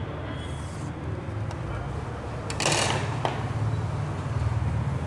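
Marker pen drawing a short line along a set square on a whiteboard: a brief scratchy hiss about two and a half seconds in, then a light click, over a steady low background hum.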